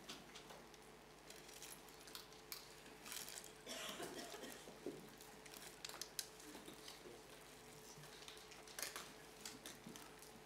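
Near silence in a hall: scattered faint clicks, knocks and rustles of people moving about and handling things, over a faint steady hum.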